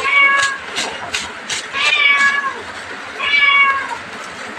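Three drawn-out, high-pitched meow-like calls, each about half a second long, with a few sharp clicks between the first two.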